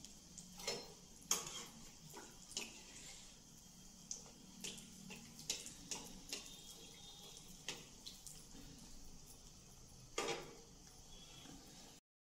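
Oil sizzling as a potato-coated boiled-egg cutlet deep-fries in a kadhai, a steady high hiss with many small pops and crackles. A few sharper clicks stand out, one near the start and one near the end, and the sound cuts off just before the end.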